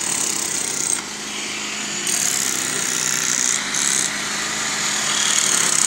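Small excavator's engine running steadily with a constant hum under a dense hiss while it digs, getting a little louder about two seconds in.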